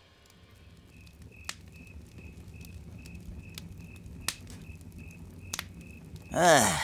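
Cricket chirping: short high chirps at an even pace of about four a second, with a few sharp clicks among them. A voice sounds briefly near the end.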